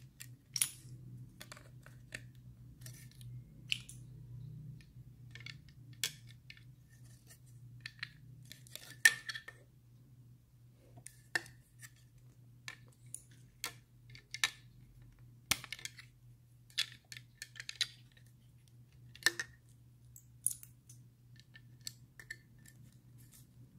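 LEGO plastic bricks and plates being handled and pressed together: irregular sharp clicks and light clatters, the loudest about nine seconds in, over a steady low hum.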